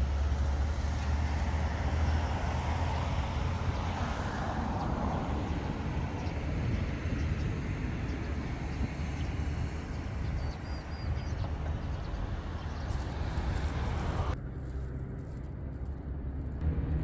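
Wind buffeting the microphone outdoors: a low, uneven rumble, with four short high chirps about ten seconds in. The rumble thins out abruptly near the end.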